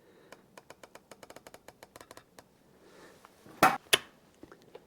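Riflescope turret clicking through a rapid run of about twenty detent clicks as the windage is dialled. About three and a half seconds in come two loud metallic clacks, the Sig Cross's bolt being worked open and pulled back.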